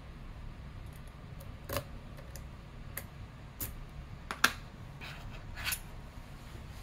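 Light clicks and taps of a brass key being handled and drawn out of a wafer cam lock. The sharpest tap comes about two-thirds of the way through, as the key is set down on a cutting mat. A low steady hum runs underneath.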